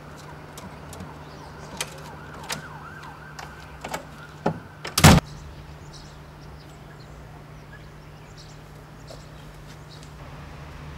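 A few sharp clicks and knocks at a wooden door with a keypad lock, then one loud knock about five seconds in, over a steady low hum.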